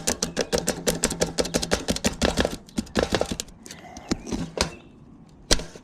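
Rapid scraping and tapping of a hand tool prying at a caulked roofing nail on a metal roof vent, about ten strokes a second, slowing after a few seconds, then one sharp knock near the end.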